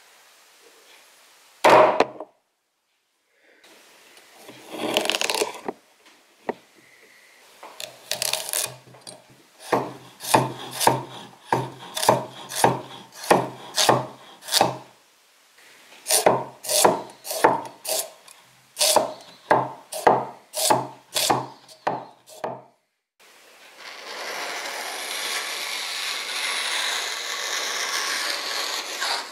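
Chinese-style cleaver chopping a carrot on a wooden cutting board: one loud chop about two seconds in, then two runs of quick, even chops, about two a second. Near the end the blade slices through a sheet of paper with a steady rasping hiss.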